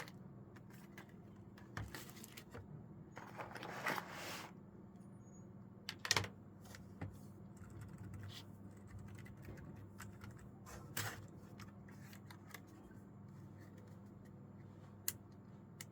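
Scattered clicks and taps from a keyboard being handled, with a short rustle about four seconds in and a sharper click near the end, over a low steady hum.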